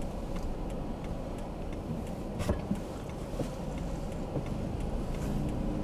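A car heard from inside its cabin: a steady low engine and road rumble, with a few light ticks, one sharper click about halfway through.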